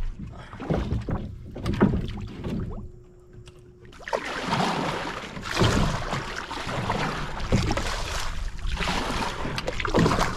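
Canoe being paddled: a few knocks in the first few seconds, then steady water rush that swells about every two seconds with the paddle strokes.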